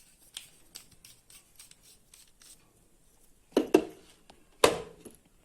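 Hand tools and their plastic kit being handled: a run of small light clicks, then three sharper knocks, two close together about three and a half seconds in and one a second later.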